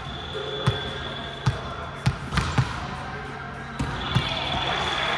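A volleyball bouncing on a hardwood gym floor: several sharp thumps at uneven intervals in a large hall, over a faint steady hum.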